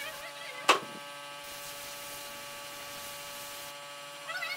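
A single sharp click, then a steady hum of several level tones held for about three and a half seconds, the sound of a small electric motor running.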